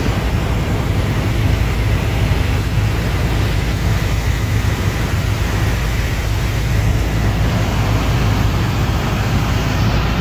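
Helicopter in flight heard from inside the cabin: a steady, loud low drone from the rotor and engine under a constant rush of noise.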